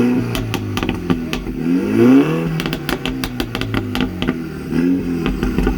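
Mini John Cooper Works engine blipped from idle, its note rising and falling back about three times, with sharp crackles and pops from the exhaust as the revs drop, a quick string of them after the second blip.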